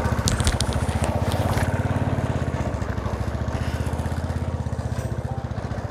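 Royal Enfield 350 cc single-cylinder motorcycle engine running at low revs with a steady, rapid pulsing beat as the bike climbs a rough dirt track, slowly fading. A few sharp clicks come in the first second and a half.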